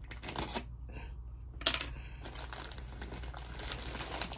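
Shipping packaging crinkling and rustling as it is worked open by hand, with one louder, sharp crackle about a second and a half in. The package is hard to open.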